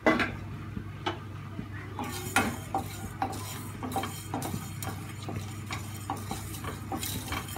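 A wooden spatula stirring coriander, cumin, pepper and fenugreek seeds dry-roasting in a frying pan, with irregular scrapes and light taps against the pan over a steady low hum.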